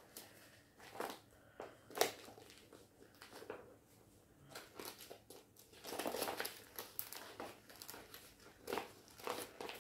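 A clear plastic sleeve and a fabric cross-stitch canvas being handled and folded: an irregular run of soft crinkles and rustles, with a sharper click about two seconds in and a busier stretch about six seconds in.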